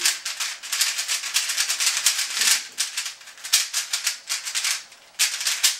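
Moyu Aolong v1 3x3 speedcube, not yet lubricated, being turned fast by hand: rapid, continuous plastic clicking and clattering of the turning layers, in several runs with short pauses.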